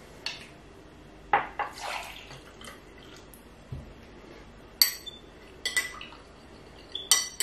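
A metal teaspoon knocking and clinking against a plastic jug and a small drinking glass while yeast is stirred into water. A cluster of knocks with a short watery scrape comes about one and a half seconds in, then several separate ringing clinks of spoon on glass near the end.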